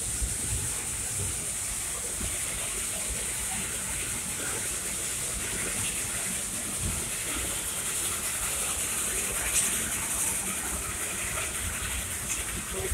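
Steam locomotive hissing steadily as it runs, over the low rumble of the open passenger car rolling along the track.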